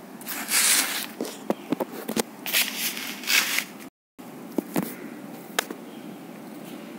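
Rustling and scraping handling noise from the phone being moved and repositioned over a sheet of paper, with scattered sharp clicks. The sound cuts out completely for a moment about four seconds in, then stays quieter with only a few clicks.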